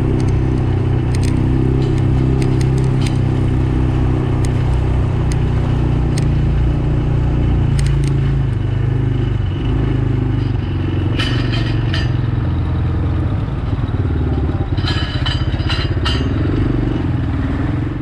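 ATV engine running steadily under way on a rutted dirt track, with short spells of clattering about eleven and fifteen seconds in.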